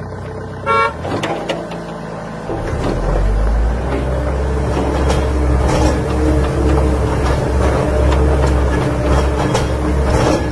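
A small motor-driven machine running steadily with a low hum, which grows louder about two and a half seconds in. A short high tone sounds about a second in.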